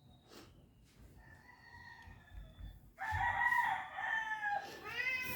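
A rooster crows once, about three seconds in, one long call held at a steady pitch for nearly two seconds and falling at the end. A cat gives a short meow right at the end.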